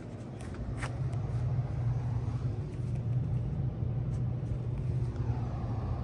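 2000 Bard 4-ton wall-hung heat pump running in heat mode, a steady low hum from its compressor and outdoor fan that grows a little louder about a second in.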